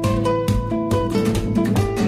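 Background music: strummed acoustic guitar chords at a steady beat of about two strokes a second.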